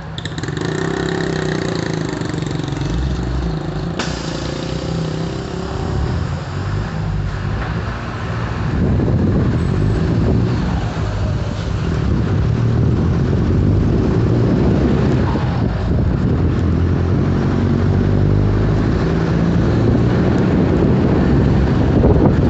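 Exhaust of a Mercedes-Benz OF-1721 Euro 5 bus's diesel engine running, with a steady low rumble that grows louder about eight seconds in and stays loud.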